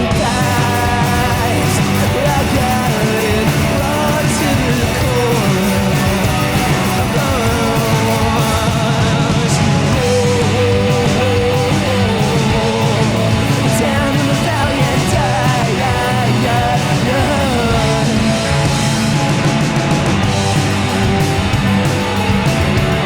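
Rock band playing live: electric guitar, bass and drums in a loud, dense instrumental passage, with a lead line whose notes bend and slide up and down.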